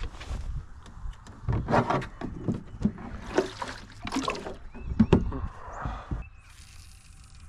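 Irregular knocks and clatter of gear being handled on the deck of a small fishing boat, lasting about six seconds before it goes quieter.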